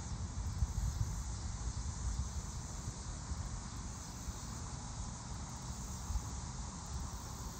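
Outdoor ambience: wind rumbling in gusts on the microphone, over a steady high chorus of insects such as crickets.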